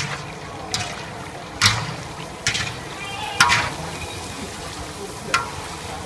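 Oil sizzling steadily in a large aluminium wok as thin slices deep-fry, with about six sharp scrapes and knocks, roughly one a second, as a wire-mesh skimmer stirs them against the metal pan.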